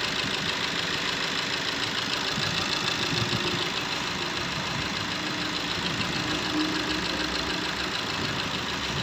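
Maruti Suzuki Ertiga's four-cylinder diesel engine idling steadily after a rebuild for a seized crankshaft at the second cylinder, now running without the earlier knock.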